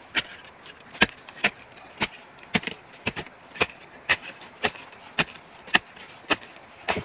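A shovel blade chopping down into root-matted soil, about two strikes a second in a steady rhythm, cutting through tree roots while digging.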